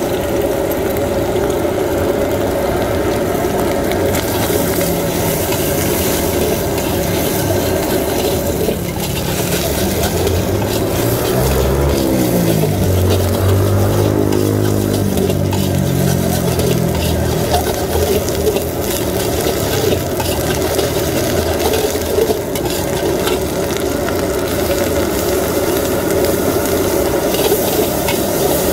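Flat metal spatula scraping and stirring egg and petai beans frying in a metal wok, with steady sizzling. About halfway through, a passing engine's drone rises and falls in pitch.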